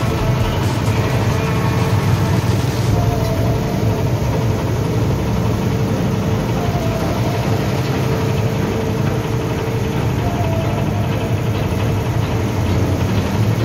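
Engine of a 2-ton ride-on double-drum baby roller running at a steady note while it compacts an asphalt patch. Passing cars and motorbikes are mixed in.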